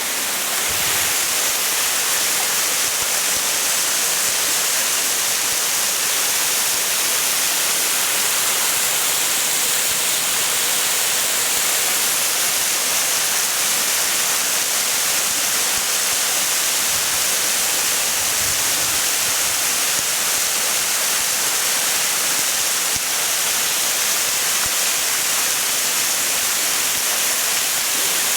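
Waterfall cascading down rocks into a plunge pool: a steady, loud rushing of falling water.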